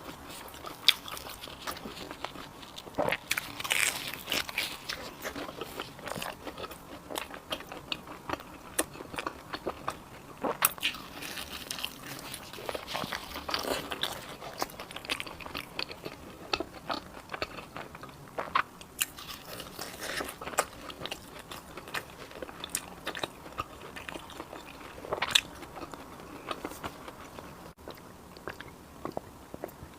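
Close-miked eating: crunching bites and chewing of crisp fried cakes with a black sesame filling, in irregular sharp crunches with softer chewing between them.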